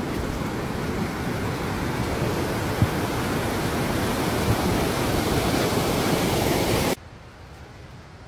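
Rushing mountain creek water, a loud steady rush, with two brief knocks near the middle. The rush cuts off suddenly about seven seconds in, leaving only a faint outdoor hiss.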